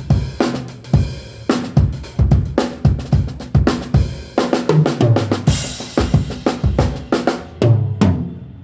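Acoustic drum kit played across the whole kit for a sound check: kick, snare, hi-hat and cymbals in a steady groove, with low tom hits around the middle and near the end, stopping just before the end.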